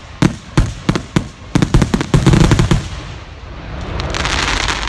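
Aerial fireworks shells bursting in a rapid barrage, many sharp bangs in quick succession for nearly three seconds. The bangs then stop and a rising rush of noise fills the last second or so.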